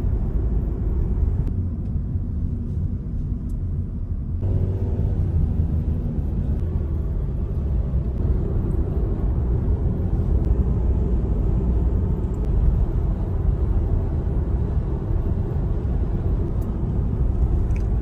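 Steady low rumble of a car driving at road speed, engine and tyre noise heard from inside the cabin.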